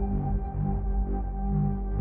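Ambient background music: steady held tones over a low drone.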